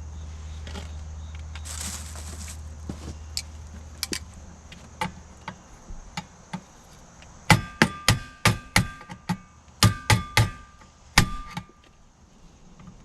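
A low hum fades out, then a run of about ten sharp metallic knocks, each with a brief ring, in two quick clusters in the second half: metal being struck during electrical or installation work.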